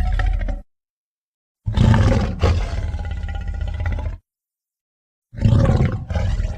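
Sound-effect roars of a cartoon Tyrannosaurus. One roar cuts off just after the start. After a second of dead silence comes a loud roar of about two and a half seconds, and after another gap of about a second a third roar begins near the end.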